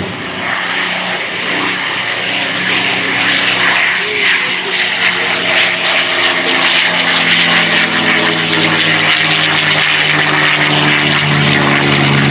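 F-22 Raptor's twin Pratt & Whitney F119 jet engines on takeoff: a loud, steady hiss over a low droning hum that edges up in pitch over the last few seconds.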